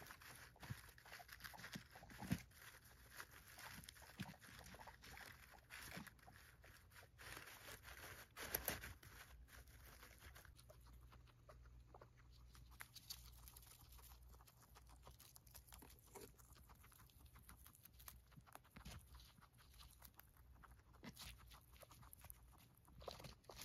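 Guinea pigs chewing hay: faint, rapid crunching and rustling of dry hay, with a couple of louder crunches.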